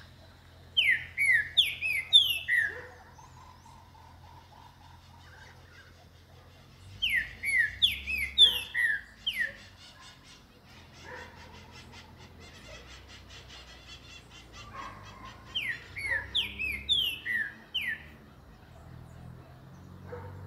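Green-winged saltator (trinca-ferro) singing: three loud phrases of quick, downward-slurred whistled notes, each about two seconds long and several seconds apart.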